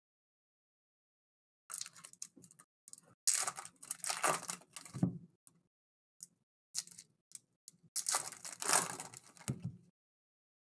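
Foil wrappers of 2022 Topps Chrome Formula 1 trading-card packs crinkling and tearing as the packs are opened by hand. The noise comes in several irregular bursts after a silent first second or two.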